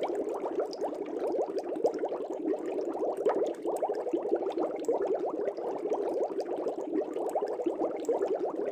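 Air bubbling steadily through aquarium water: a dense, continuous stream of small gurgling bubble pops.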